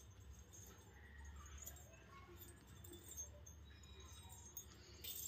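Near silence: room tone with a low hum and a few faint clinks from the metal coins of a coin belt worn as a veil.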